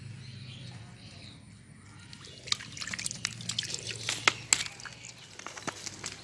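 Shallow ditch water splashing and dripping as a hooked eel is pulled up out of it: a quick run of sharp splashes and drips starting about two and a half seconds in, after a faint low hum.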